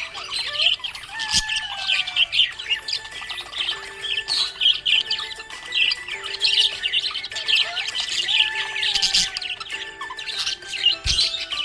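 Budgerigars chirping and warbling continuously, a dense run of rapid high chirps with no pause.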